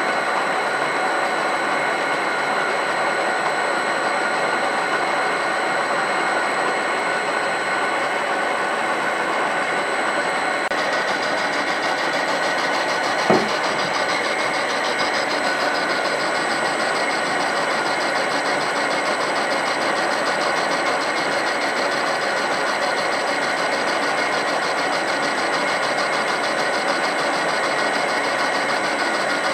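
A small electric motor running steadily, with a single sharp click about halfway through.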